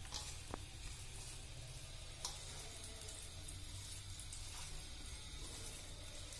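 A hand mixing dry rice flour and ground urad dal in a steel bowl: a faint steady rustle with a couple of short clicks, over a low steady hum.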